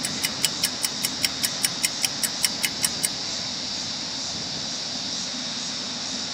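Fishing reel ticking evenly, about five clicks a second, as a lure is cranked in; the ticking stops about three seconds in. A steady high insect drone runs underneath.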